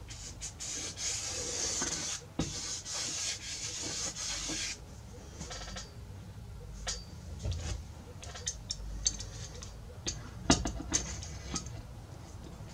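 Hand scraping on the wood of a guitar top's rosette channel for about four and a half seconds, a rough rasping hiss, as the channel is cut a little deeper. Then a scattering of light taps and clicks.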